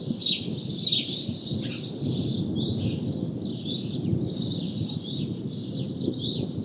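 Small birds chirping continually, quick falling notes about three a second, over a steady low rush of rain.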